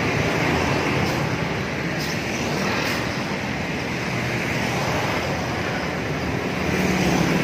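Honda Verza 150's single-cylinder engine idling steadily through its stock muffler.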